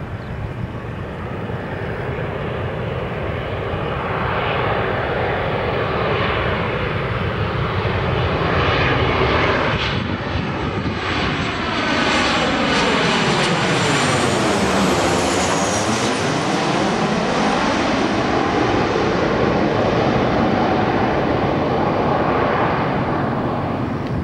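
Boeing 737-800 airliner's CFM56-7B turbofans on landing approach, a steady roar that grows louder as the jet nears. It passes low directly overhead about halfway through, with a sweeping, swirling change in tone and a high whine that falls in pitch, then keeps roaring as it moves away.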